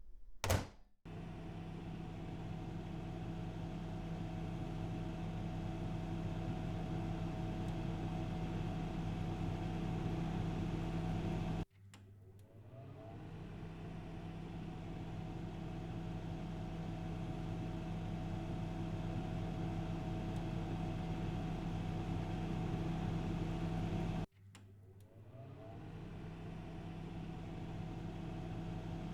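A steady mechanical hum with a low pitched drone, cutting off abruptly twice and coming back, swelling up each time. There is a sharp knock right at the start.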